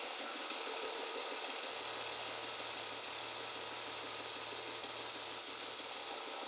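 BMW E36's M52 inline-six engine running at a steady speed with a fast, even knocking sound. A faint low hum joins about two seconds in.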